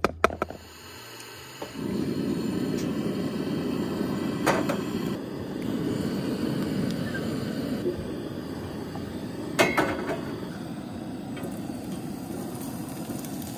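Two-burner propane camp stove running, a steady low rushing burner noise that sets in suddenly a couple of seconds in, with two sharp knocks of cookware partway through.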